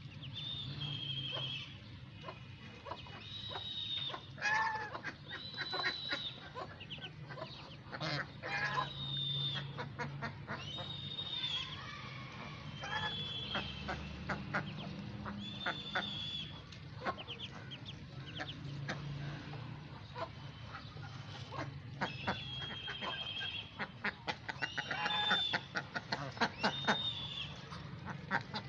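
Domestic geese and ducks feeding on grain scattered on concrete. Their bills peck and dabble in quick runs of sharp clicks, and short, high calls come every few seconds.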